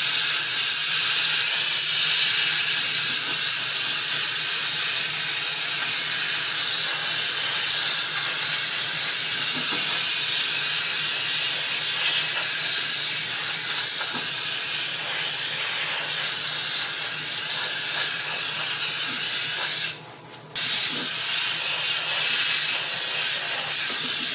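Compressed-air blow gun with a long thin nozzle hissing steadily as it blows air across wet epoxy on a saw blade. The air cuts off for about half a second around twenty seconds in, then starts again.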